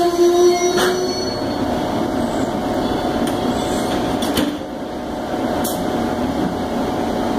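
Amtrak passenger coaches rolling past at a grade crossing: a steady rumble of wheels on the rails, with a few short clacks. A held pitched tone stops about a second in.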